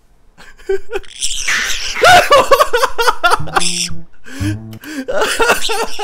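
Eclectus parrot screeching harshly at a dog, starting suddenly about a second in, with a man laughing.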